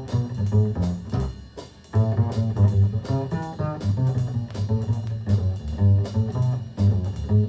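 Recorded music played back through hi-fi loudspeakers: a guitar track with a strong bass line and a steady beat.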